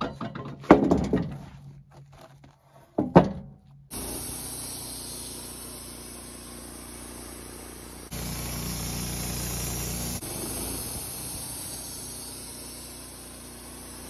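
Two heavy wooden thunks in the first few seconds, then a Wood-Mizer LT15 band sawmill running steadily, its band blade cutting through an incense cedar log.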